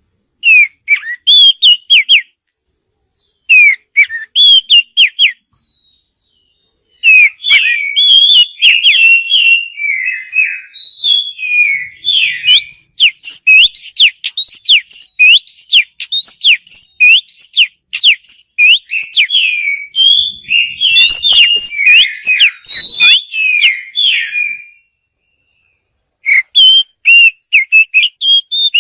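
Oriental magpie-robin singing loud, rapid whistled phrases of varied notes. A few short phrases with pauses give way, about seven seconds in, to a long run of fast song lasting most of the rest, then one more short phrase near the end.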